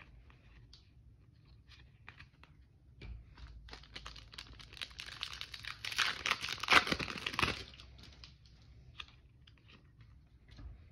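Foil trading-card pack wrapper being torn open and crinkled, building over a few seconds in the middle and stopping suddenly. Lighter rustles and taps of cards being handled come before and after it.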